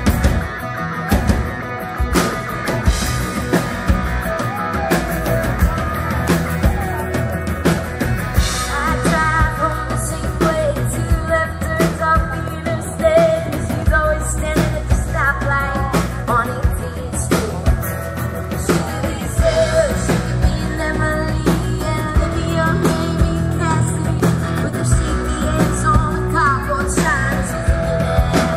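Live band playing a rock-country song: a woman's lead vocal over acoustic and electric guitars and a drum kit, with the singing coming in after a few seconds.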